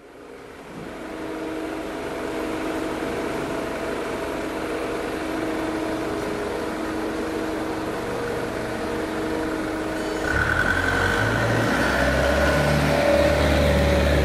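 Plywood-making machinery running with a steady mechanical hum; about ten seconds in a louder, deeper hum starts, with a higher steady whine over it.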